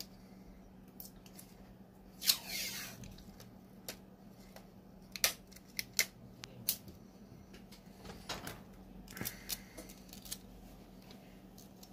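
Scattered light clicks and handling noises of small tools and parts at a repair bench, with one sharper click and a short falling swish about two seconds in, over a faint steady hum.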